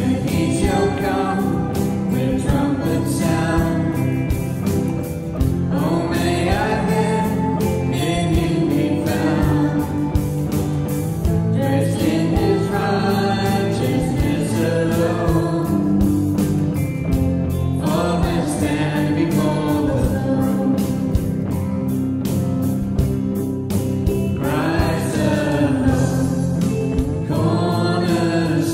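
A worship song sung to electric guitar accompaniment, in phrases of a few seconds each over steady strummed chords.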